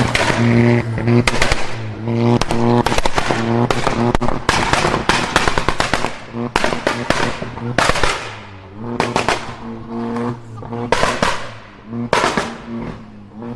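Performance car exhaust popping and banging in rapid strings of sharp cracks, between spells of the engine held at steady revs.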